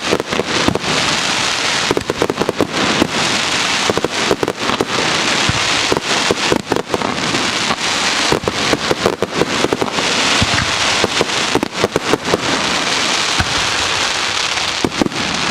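Fireworks exploding overhead: a dense, continuous crackle like heavy rain, with many sharp pops and bangs from bursting shells.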